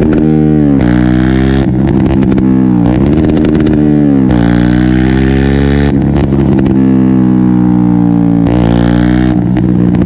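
KTM 125 Duke's single-cylinder four-stroke engine running under way, its pitch climbing as it accelerates and dropping sharply several times, as at gear changes.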